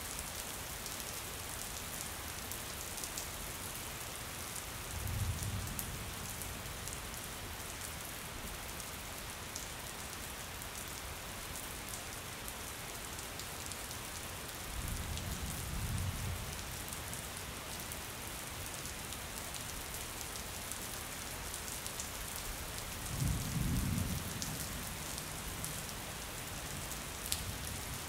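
Steady rain falling on a window, with small drop ticks throughout. Three low rumbles of distant thunder come through it: about five seconds in, again around the middle, and a louder one a few seconds before the end.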